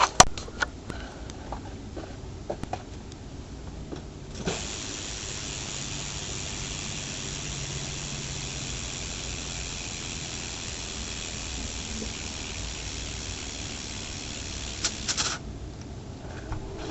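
BMX rear hub freewheeling as the wheel is spun, its ratchet giving a fast, steady buzz of clicks. It starts about four seconds in after a few scattered clicks and stops abruptly near the end.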